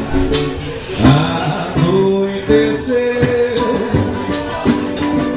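Live band playing: a man singing a melody over plucked guitar and hand drums.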